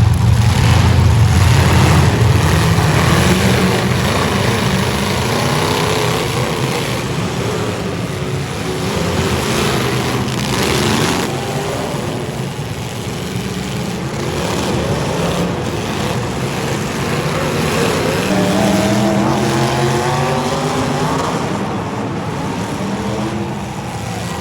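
Derby car engines running loudly with a heavy low rumble, then one engine revving with its pitch climbing about three-quarters of the way through.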